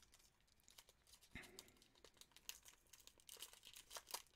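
Faint crinkling and tearing of a plastic snack-bar wrapper being opened by hand, in scattered small crackles.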